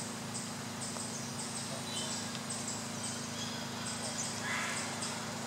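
Forest insects calling, a high-pitched buzz in short repeated pulses about twice a second, over a steady low hum.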